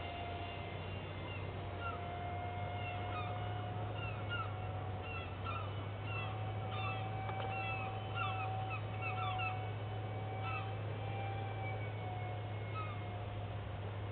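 Electric ducted fan of a Phase 3 EF-16 radio-controlled jet whining overhead, one steady high tone that wavers slightly in pitch. A flock of birds calls with many short chirps through the middle.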